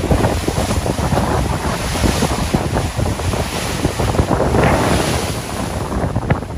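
Rough sea waves breaking and churning into foam, a steady loud surf, with wind buffeting the microphone.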